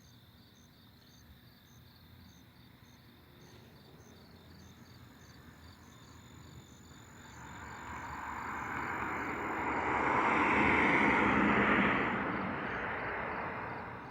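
A car passing on a nearby road: its tyre and engine noise swells over several seconds, peaks a little past the middle and fades away. Crickets chirp steadily in the background.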